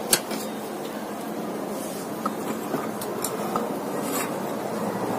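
Steady hiss of broth heating in a wok on a portable gas stove, with a few light clicks and taps of a knife and utensils being handled.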